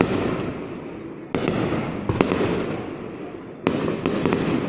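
Aerial fireworks shells bursting: two big booms a little over two seconds apart, each fading in a long rolling echo, with sharp single cracks in between.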